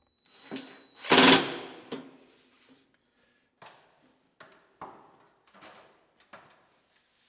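A cordless drill briefly drives a screw into sheet-metal stovepipe about a second in. It is followed by several light metallic knocks and clanks as the pipe sections are handled and fitted together.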